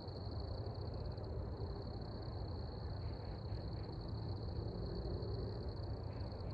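Night outdoor ambience: a steady, high-pitched chorus of night-calling creatures over a low, steady rumble, with a few faint chirps about three seconds in.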